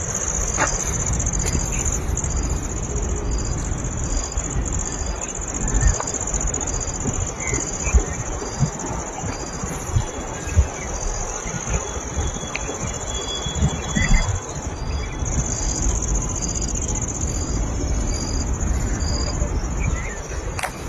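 Insects droning in a continuous high-pitched chorus, with a second insect chirping in a steady pulse about twice a second, over a low rumble.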